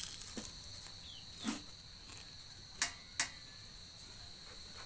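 A person chewing a crisp fried gujiya pastry, with a few short crunches spread through the chewing, over a steady high-pitched drone.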